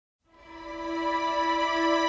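Background music fading in: sustained held notes that swell in from silence over the first second or so.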